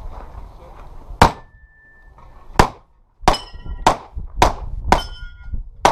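Seven handgun shots fired during a practical pistol stage: two spaced over a second apart, then a quicker string about half a second apart. Several shots are followed by a short metallic ring, as from steel targets being hit.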